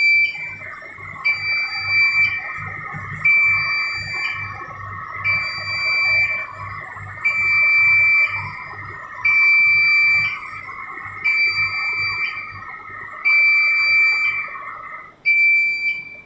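Warning buzzer on an LCD polarizer laminating machine beeping in a steady on-off pattern, about one second on and one second off, each beep ending in a short upward chirp. Underneath runs a steady whine that stops shortly before the end.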